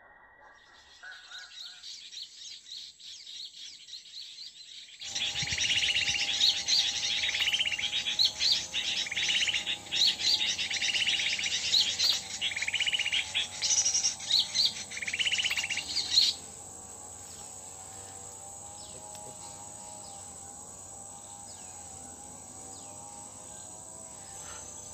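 Small birds chirping, faintly at first, then a dense, loud run of rapid overlapping chirps from about five seconds in that stops abruptly near the middle. A steady drone and a high steady whine run underneath throughout.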